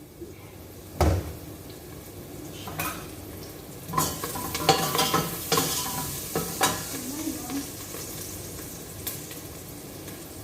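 Whole spices sizzling in a pot while a metal utensil stirs and scrapes them, with a knock about a second in and a flurry of clinks and scrapes against the pot a few seconds later.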